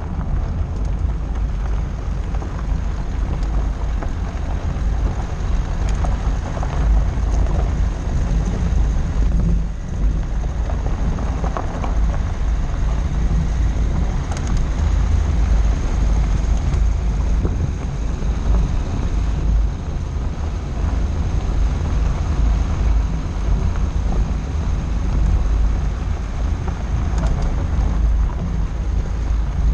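Dacia Duster driving slowly along a loose gravel track, heard from a microphone on the outside of the body: steady wind buffeting on the microphone and a low rumble of the car, with tyres crackling over stones.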